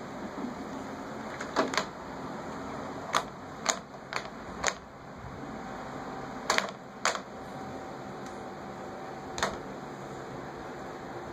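A baby's hands slapping and patting a hardwood floor: about ten sharp slaps, some in quick pairs, over the steady hum of an electric fan.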